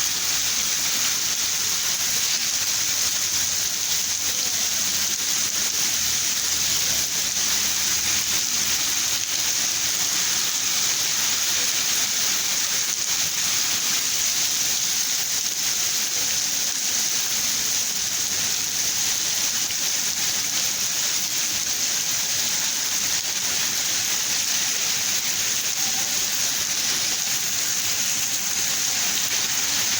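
Steady heavy rain, an even, constant hiss.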